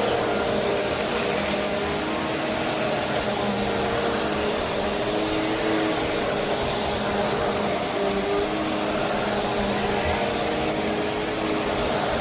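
Bissell CleanView Swivel Pet upright vacuum cleaner running steadily, its motor giving a constant whirring rush with a few steady hum tones underneath.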